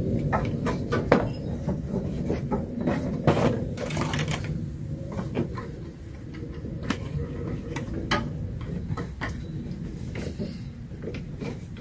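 Scattered clicks and knocks as hands work a ribbed serpentine belt in around the alternator and nearby engine-bay parts, over a steady low background rumble.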